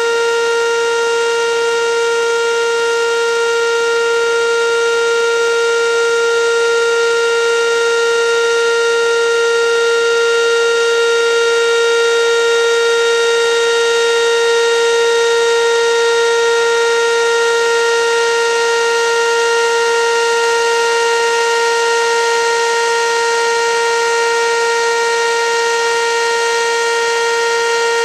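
Two Whelen WPS 2810 electronic outdoor warning sirens sounding a loud, steady alert tone, one unchanging pitch with no rise or fall. This is the monthly test of the plant's emergency warning sirens.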